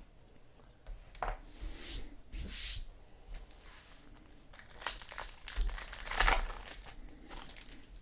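Trading card pack wrappers being torn open and crinkled by hand, in two bouts of rustling and tearing.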